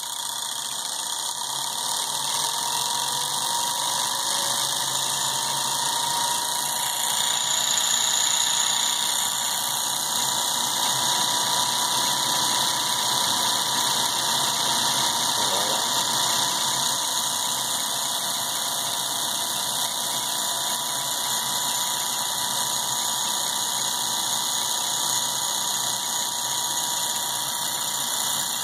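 Electric motor driving a car alternator by a belt, switched on and spinning up: a whine that rises in pitch over the first few seconds, then runs steadily at speed.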